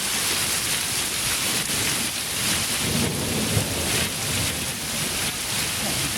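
Heavy downpour of rain mixed with hail, a steady hiss of falling water with faint ticks of hailstones striking.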